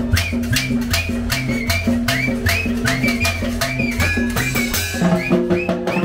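Live Latin dance band playing salsa-style music: timbales and cymbal strokes keep a steady quick beat, about four a second, over an upright bass line, with a saxophone playing scooping phrases on top.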